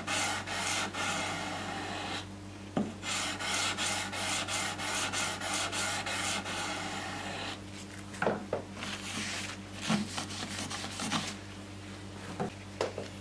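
Hand-sanding an N690 stainless steel knife blade with abrasive paper wrapped round a flat block: quick back-and-forth scraping strokes with a brief pause early on. The strokes stop a little past halfway, and a few light knocks follow.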